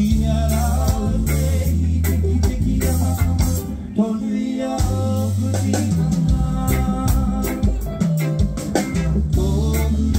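Live band music through a stage PA: drum kit, bass guitar and electric guitar keep up a steady groove, with singing over the top.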